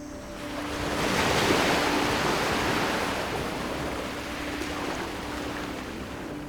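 Ocean waves washing onto the shore, swelling about a second in and then slowly easing back, with soft background music tones underneath.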